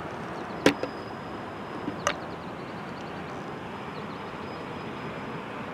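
Steady outdoor noise of wind and distant road traffic, broken by two sharp clicks: one under a second in and another a second and a half later.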